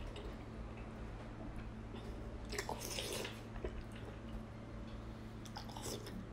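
Close-up eating: a person biting and chewing a soft piece of fatty pork belly. Two louder bursts of eating noise come about two and a half seconds in and again near the end.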